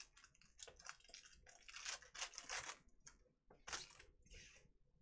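Faint scraping and swishing of glossy trading cards being slid off a stack and flicked past one another in the hand, a quick run of short strokes.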